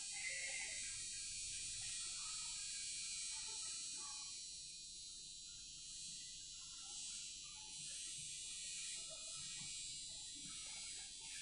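Steady high-pitched hiss of room tone, with faint, scattered soft sounds beneath it and no distinct clicks or knocks.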